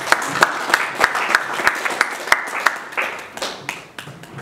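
A small congregation applauding: a burst of clapping with a few sharp close claps standing out, tapering off in the last second or so.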